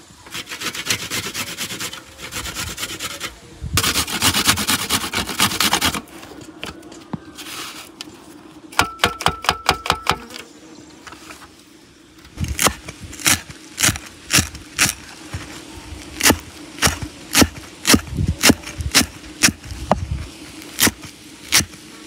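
Garlic cloves rubbed against a metal hand grater in two rasping spells over the first six seconds. Then a kitchen knife chops on a wooden chopping block, first in a quick run of taps and then in steady single chops a little under two a second through fresh green herbs.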